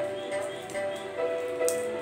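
Background music with sustained, held notes that shift about a second in.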